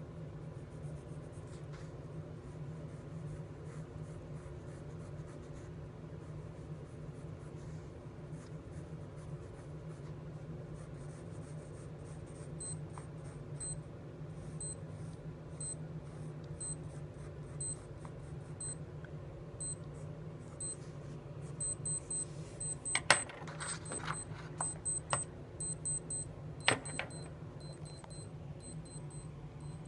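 Pencil scratching on paper, then a digital wristwatch timer beeping: single high beeps about once a second starting near the middle, then a faster run of alarm beeps marking the end of the one-minute countdown. A few sharp clicks and knocks from handling are the loudest sounds, late on.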